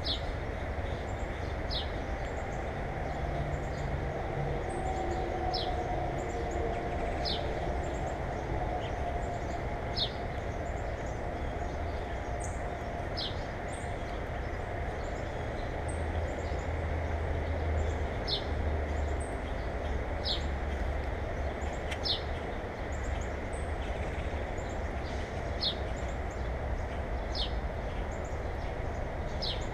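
A small bird repeating a short, high, down-slurred chirp every one to four seconds, about a dozen times, over a steady low rumble.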